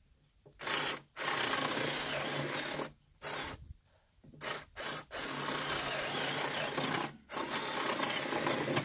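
Cordless drill boring into a wooden board, opening up a hole so a lag-bolt pin will fit through. The drill runs in several bursts of up to about two seconds with brief pauses between them, the bit cutting the wood over a steady motor hum.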